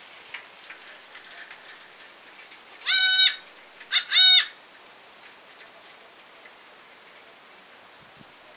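Baby goat bleating: a high-pitched bleat about three seconds in, then a second, broken bleat about a second later.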